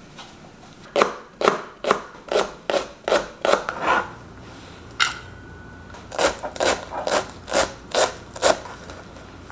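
Chef's knife slicing green onions and chopping leafy herbs on a cutting board: a run of crisp knife strokes about two a second, with a short pause in the middle.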